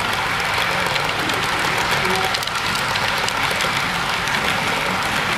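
HO scale model freight train rolling past close by: a steady clattering rush of small metal wheels on the track, with many fine clicks.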